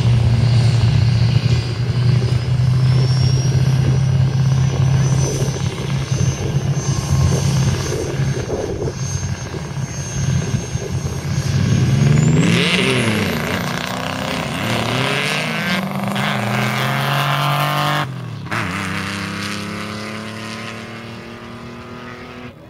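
Engines of a drag-racing truck and buggy running at the starting line, then launching about halfway through: the engine pitch climbs and falls back several times through the gear changes, with a high whine rising over it. The sound fades as they run away down the strip.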